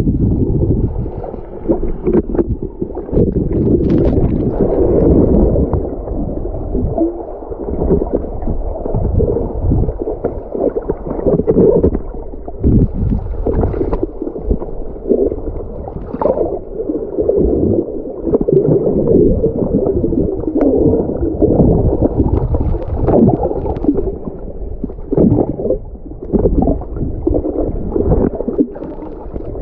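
Muffled water sloshing and gurgling around a kayak, with uneven surges and some wind on the microphone.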